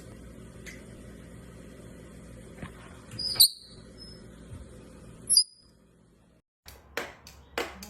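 Parrot giving two short, high, squeaky chirps about two seconds apart over a low hum. After a brief silence comes a run of sharp taps, about two a second.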